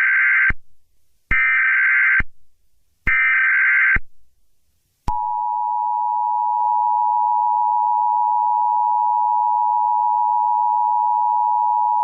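Emergency Alert System tones: three roughly one-second bursts of the SAME header's buzzing data screech, separated by short gaps, then the steady two-tone EAS attention signal starting about five seconds in.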